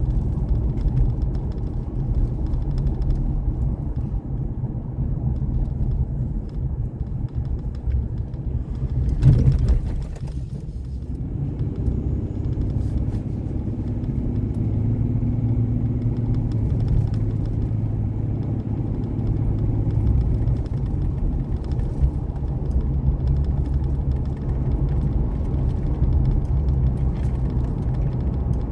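Vehicle driving along: a steady low engine and road rumble, with a brief louder rush of noise about nine seconds in.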